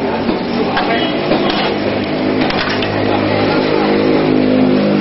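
A steady motor or engine drone that sets in about a second and a half in and grows louder, with a few sharp clicks of a metal utensil against a griddle pan early on.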